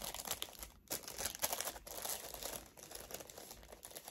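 Packaging being handled and unwrapped, crinkling and rustling with irregular small crackles.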